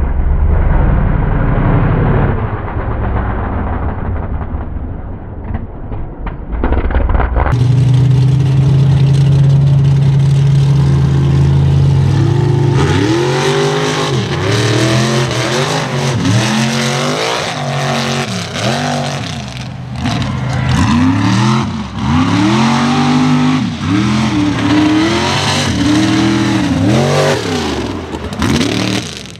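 Mega truck engine running hard: a muffled, rumbling run for the first several seconds, then a steady note, and from about halfway a long run of throttle revs, each one rising and falling in pitch, about one a second.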